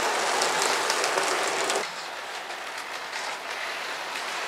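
Model railway train, a model LNER L1 tank locomotive hauling coaches, running along the track: a steady hiss of motor and wheels with light clicks over the rail joints. The sound drops suddenly quieter about two seconds in.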